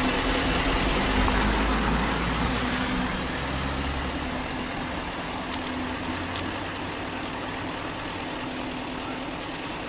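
A motor vehicle's engine running steadily with a low hum, growing slowly quieter over several seconds.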